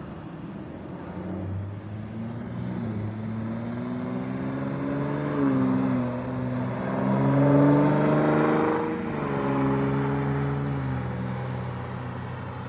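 Ford Shelby Raptor pickup's engine driving past: the note grows louder to a peak about seven to eight seconds in, drops in pitch as it goes by, then fades into steady traffic noise.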